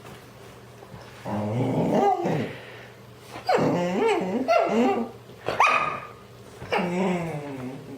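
A dog vocalizing in four drawn-out calls that bend up and down in pitch, with short pauses between them.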